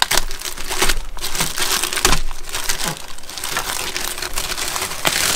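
A clear polyethylene plastic bag crinkling and crackling irregularly as it is handled and pulled open.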